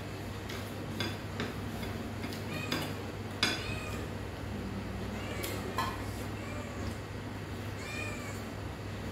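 A kitten meowing a few short times, mostly in the second half, over light clicks of chopsticks against a plate.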